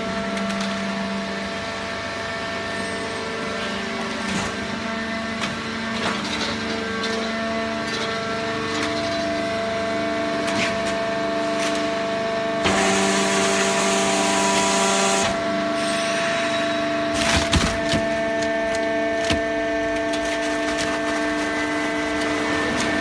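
Hydraulic waste-paper baling press running: a steady hum of held tones from the motor and pump, with scattered cracks and creaks as the paper is pressed. About thirteen seconds in, the hum shifts and a hiss sounds for about two and a half seconds before the steady running resumes.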